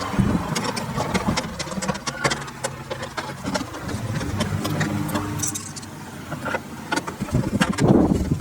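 Mounting screws of a car door speaker being driven in with an 8 mm driver: sharp tool clicks and knocks with a short whirring hum about halfway through.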